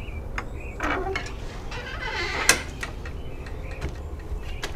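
Galvanised metal hasp on wooden shed doors clinking as it is flipped open, then the doors being pulled open, ending in a sharp knock about two and a half seconds in.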